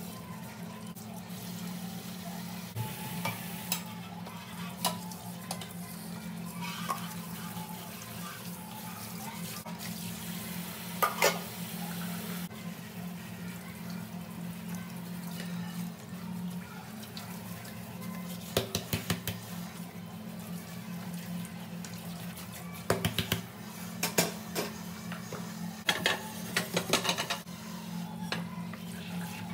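Dishes and a pan being washed by hand under a running tap in a stainless steel sink: water running, with dishes and utensils clinking and clattering in scattered bursts that come thickest in the second half.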